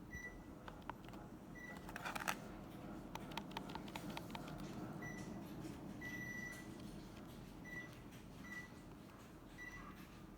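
Panasonic ceiling fan beeping: seven short beeps at one pitch, one held a little longer near the middle, over a steady low hum, with a quick cluster of clicks about two seconds in.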